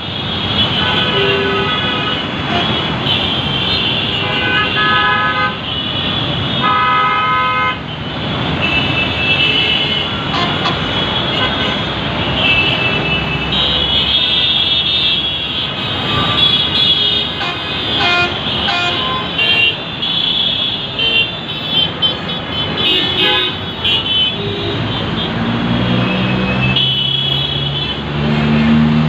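Dense road traffic of buses, cars, CNG auto-rickshaws and motorcycles: engines running under many short horn honks, often several at once. A deeper engine drone comes in near the end.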